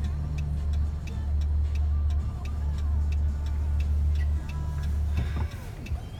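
Steady low rumble of a car driving, heard from inside the cabin, with a regular ticking over it; the rumble falls away about five seconds in.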